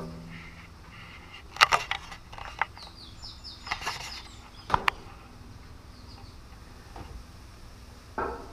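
Scattered sharp clicks and knocks, the loudest about a second and a half in and near five seconds in, with a short run of faint high chirps around three to four seconds in.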